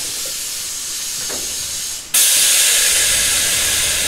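Compressed air hissing from a Tobu 8000 series train's pneumatic system: a steady hiss, then a sudden loud burst of air about two seconds in that slowly fades.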